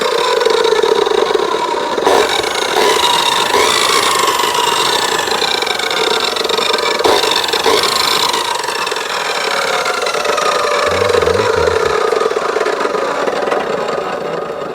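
Makita chop saw's brushed electric motor running on test with its new armature fitted. It runs steadily and loudly, its pitch falling and picking up again several times, and it begins to wind down near the end.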